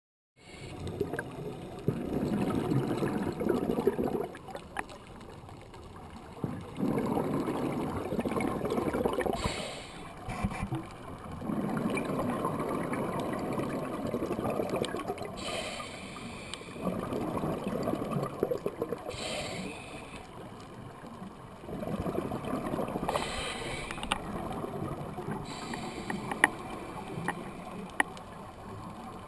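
Scuba diver breathing through a regulator, heard underwater: a rush of exhaled bubbles lasting a few seconds, then the short hiss of an inhale, about one breath every five seconds.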